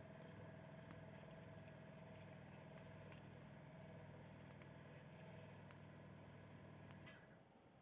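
Faint steady hum of a small electrical machine with a thin whine above it, cutting off suddenly about seven seconds in; a few faint ticks over it.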